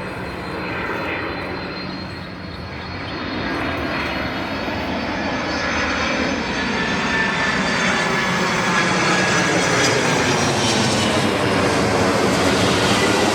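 Boeing 767-300 freighter's jet engines on approach, a steady rumble with a high whine that grows louder as the aircraft nears.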